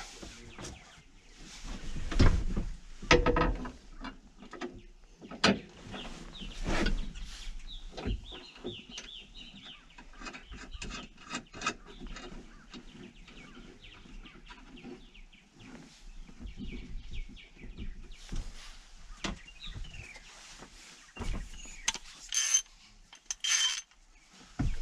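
Scattered clicks and knocks as a GreenStar display and its mounting bracket are fitted onto the bracket in a tractor cab, with birds chirping faintly in the background. Two short high-pitched tones sound near the end.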